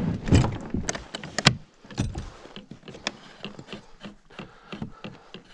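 Plastic fishing kayak hull scraping and knocking on a gravel shore as it is launched, with gear clunking on board. The knocks are dense and loudest in the first couple of seconds, then thin out to scattered light taps.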